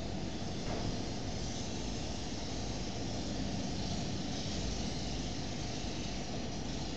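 Steady, even hiss of background noise with no speech.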